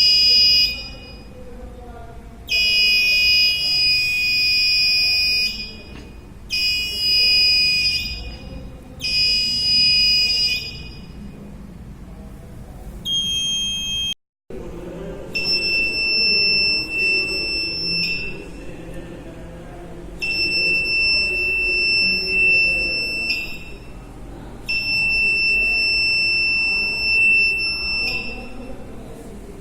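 Buzzer of a battery-powered DIY infrared beam-break security alarm sounding a steady high-pitched tone in repeated bursts of one to three seconds, about eight times: the alarm going off as the door is opened and breaks the beam.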